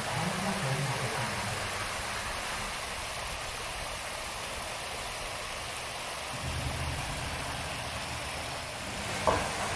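Fountain jets spraying high and water falling back, heard as a steady rushing hiss like heavy rain. A short, sharp sound stands out near the end.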